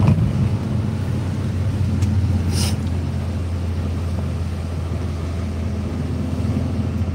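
Inside a moving car's cabin: a steady low rumble of engine and road noise, with a brief high rustle about two and a half seconds in.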